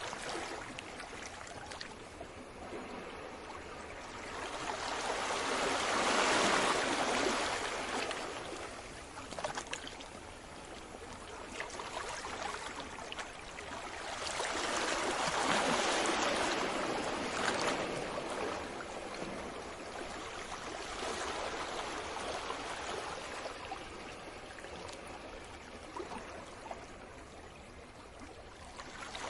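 Sea waves washing onto the shore: two larger waves swell up and die away about nine seconds apart, with softer trickling wash in between.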